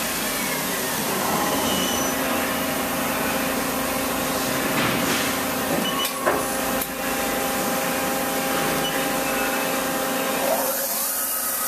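1996 Mori Seiki SL-25MC CNC lathe running under power: a steady spindle whine over motor and fan hiss. Two sharp clicks come about six seconds in. Near the end a new whine rises in pitch and then holds steady as the milling spindle spins up.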